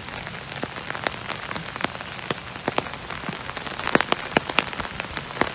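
Steady rain falling on a pasture, an even hiss scattered with sharp, irregular ticks of single raindrops striking close by.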